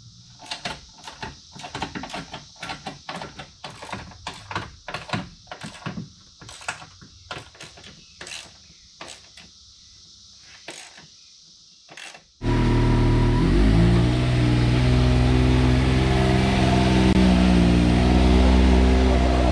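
Irregular sharp clicks and knocks for about twelve seconds. Then a sudden cut to a loud vehicle engine running steadily, its pitch drifting a little.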